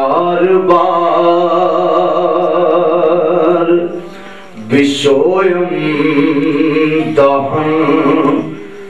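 Male naat reciter singing into a microphone, drawing out long, ornamented held notes. The voice breaks off about four seconds in and starts a new phrase half a second later, then pauses again near the end.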